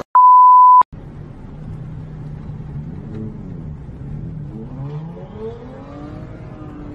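A short, loud steady beep right at the start, then a car engine running, its pitch rising and falling as it revs up and down.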